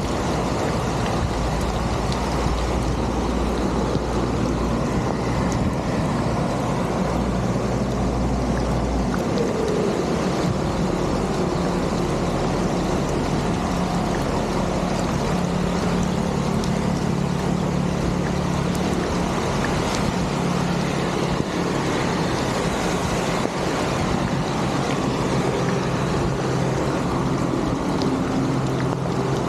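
Steady rush of water flowing through a drain, with a low hum underneath it.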